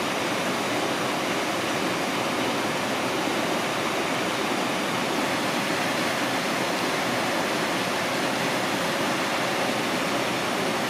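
Steady rushing of flowing water, an even noise that neither swells nor breaks.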